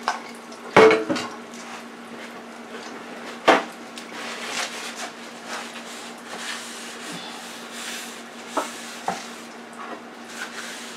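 Bowls and utensils clinking and knocking on a kitchen counter as shrimp are dipped in tempura batter: a loud knock about a second in, then a few lighter clinks. A steady low hum runs underneath.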